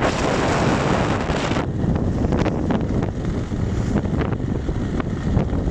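Strong wind buffeting the microphone over water rushing and splashing along the hull of a Grand Soleil 39 sailing yacht heeled under sail. The high hiss drops back about a second and a half in, leaving a low rumble with short gusts.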